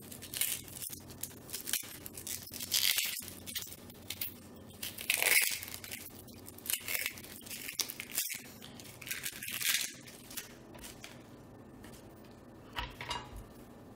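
Dry, papery skin of a yellow onion crackling and tearing as it is peeled off by hand, in irregular short bursts of rustling, the loudest about five seconds in.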